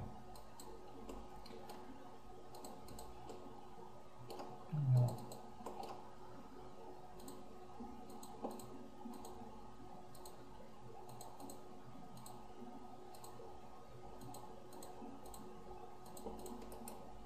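Scattered soft computer mouse clicks over faint steady room tone, with one brief low sound about five seconds in.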